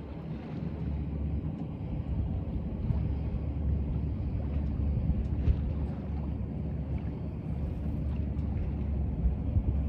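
Steady low rumble of wind buffeting the microphone, with water moving along the hull of a small sailboat under sail, and a few faint clicks.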